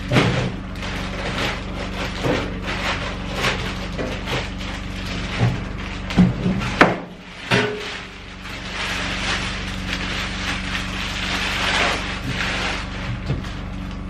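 Plastic bag crinkling and rustling as it is pulled off a steel mailbox, with a few sharp knocks about halfway through as the mailbox is handled on a wooden workbench.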